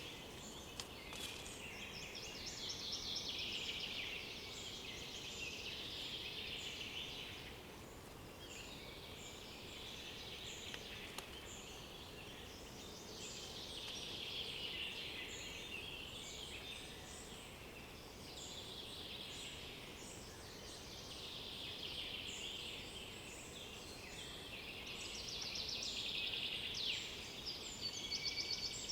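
Several songbirds singing at once, overlapping high-pitched phrases of two to four seconds each, over a steady low background hiss; near the end one bird gives a fast trill of rapidly repeated notes.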